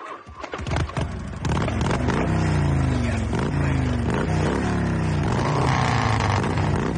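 Motorcycle engine bursting into life and being revved: the pitch climbs and falls back in repeated blips, then it runs on loud and steady.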